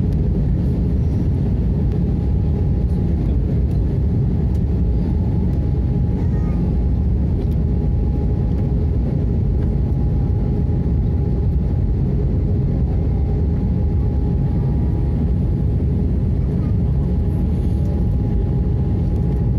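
Steady airliner cabin noise inside an Airbus A320 with CFM engines: a deep, even rush of engine and airflow with a faint steady whine above it, heard on descent with the flaps extended.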